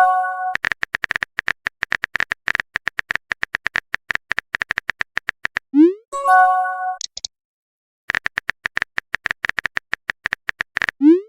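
Phone keyboard typing sound effect: rapid, even clicks, about ten a second. About six seconds in comes a short rising blip and a brief bright chime, a message notification. After a moment of silence the typing clicks start again.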